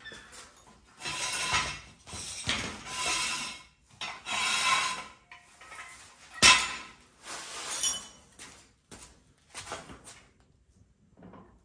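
Hydraulic floor jack being pumped by its long steel handle, about six strokes with metallic clanking and clinking and one sharper clank about halfway through, raising the front suspension to check it for bump steer.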